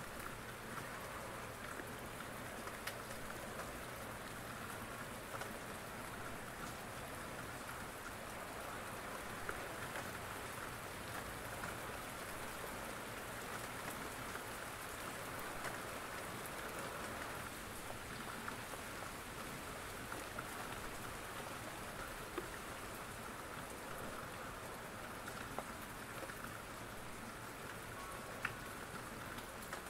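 Steady rain falling, an even hiss with occasional sharp ticks.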